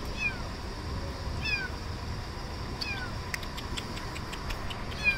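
A little kitten stuck in a car's engine bay, mewing repeatedly in high-pitched calls that each fall in pitch, four of them about every second and a half. A few faint clicks come between the third and fourth.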